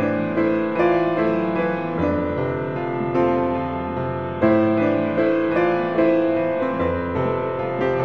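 Background piano music: a gentle melody of struck notes over changing chords.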